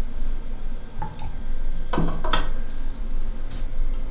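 A few sharp metallic clicks and clinks, two of them close together near the middle, from a hand-lever fibre cutter chopping a wool tuft into 2 mm snippets and a metal tool scraping the snippets into a steel bowl.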